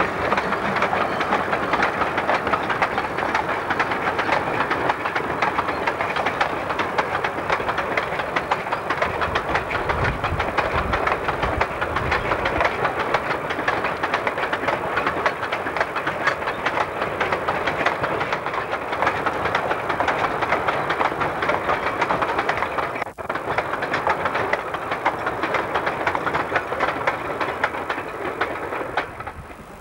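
Railway coal hopper wagons rolling past, a dense, fast clatter of wheels over the rail joints with a deeper rumble midway. The sound drops out briefly about three-quarters of the way through and falls away at the very end.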